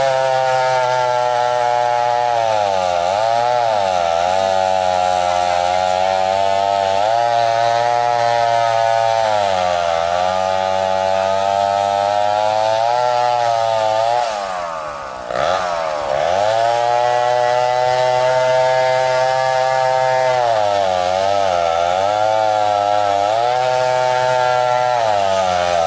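Chainsaw cutting through a log at high revs, its engine pitch sagging and recovering several times as it works through the wood. About halfway through it drops sharply and goes quieter for a moment, then revs back up.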